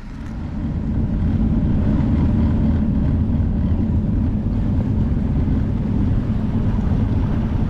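A boat running across the lake: a steady low rumble with wind buffeting the microphone, building over the first second and then holding level.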